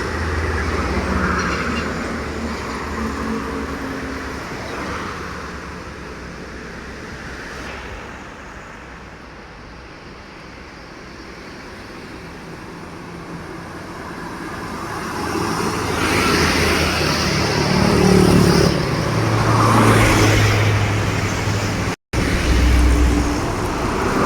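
Trucks driving past on a road, with engine rumble and tyre noise. The noise fades to a low level in the middle, then swells again as vehicles pass, loudest near the end, with a brief dropout just before it ends.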